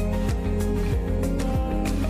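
Background music with a steady beat: held tones over a regular bass and drum pattern.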